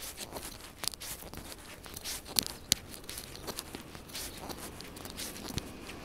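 Footsteps of a person walking on a paved sidewalk, mixed with irregular sharp clicks and rustling. Near the end, the low rumble of an approaching train begins to rise.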